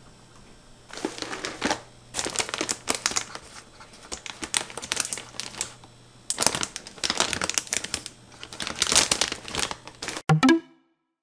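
Crinkly packaging being rustled and crinkled by hand in irregular bursts with short pauses between them, a deliberate tempting noise. It cuts off abruptly near the end with a short transition sound.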